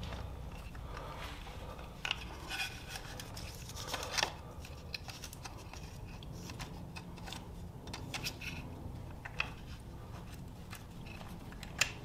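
Scattered metal clicks and short scrapes as a screwdriver and fingers work the clutch cable end loose from the bent-out tab on a motorcycle sprocket cover. Underneath is a low steady hum.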